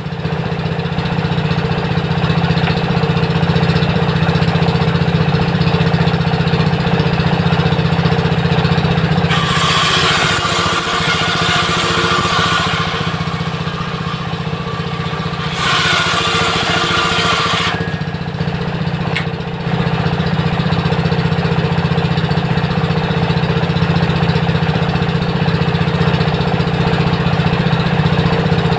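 Homemade table saw driven by a 16 HP diesel engine, running steadily with a low hum. Its circular blade rips through timber twice: a hissing cut of two to three seconds about ten seconds in, and another about sixteen seconds in.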